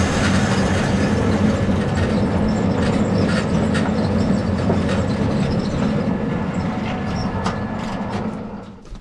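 Heavy sawmill machinery running with a steady low drone and scattered knocks and rattles, fading away near the end.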